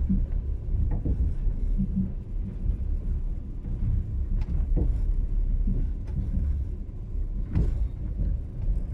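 Passenger train running, a steady low rumble of the wheels on the rails with a few sharp knocks.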